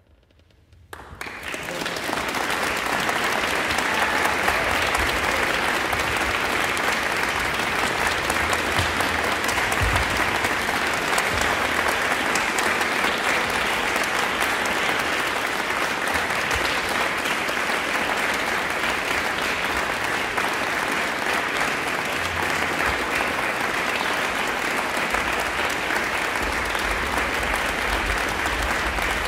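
Audience applauding. The applause breaks out about a second in, swells quickly and then carries on at a steady level.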